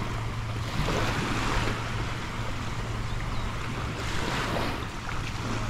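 Sea waves washing onto a sandy beach, swelling about a second in and again around four seconds in, with wind buffeting the microphone and a steady low hum underneath.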